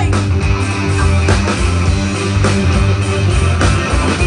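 Live rock band playing an instrumental passage: electric guitar over drums and a steady low bass line.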